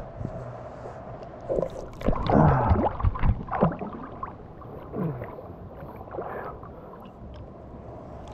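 Seawater sloshing and gurgling around a GoPro held at the surface by a swimmer. Irregular splashes come loudest in a cluster about two to four seconds in, with a few smaller ones after.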